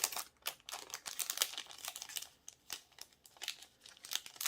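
Packaging crinkling and rustling as the pieces of a fan-kit garland are unwrapped and handled: a run of irregular quick crackles.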